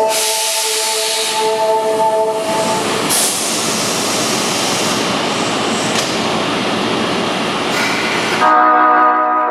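Osaka subway Tanimachi Line train's electric horn holding a chord, which the uploader finds subtly different from the usual sound. It stops a couple of seconds in, giving way to the running noise of the train pulling out. Near the end, a louder chord of several tones sets in.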